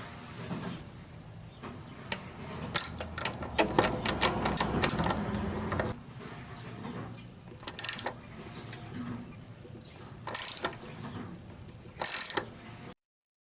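Hand-work clicking and clattering on a lawn mower during an oil change: a dense run of sharp clicks a few seconds in, then three short bursts of rapid clicking spaced a couple of seconds apart. The sound cuts off abruptly near the end.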